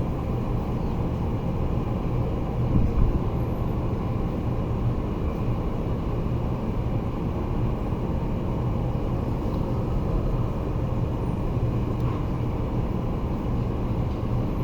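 Steady low background rumble, like traffic or machinery, with a brief louder knock about three seconds in.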